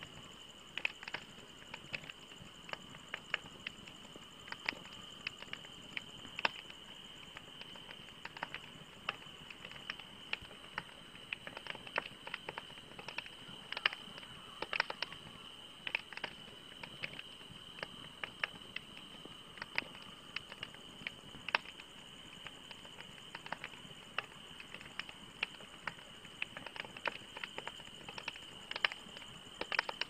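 Wood fire crackling: irregular sharp pops and snaps from burning logs, several a second, over a steady high hiss.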